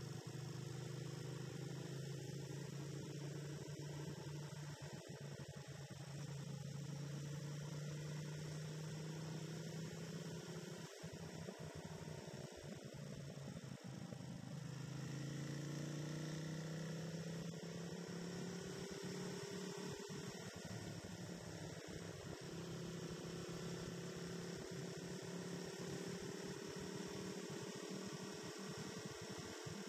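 Motorcycle engine droning steadily under way, with a low hum. Its pitch drops about halfway through, then climbs steadily again.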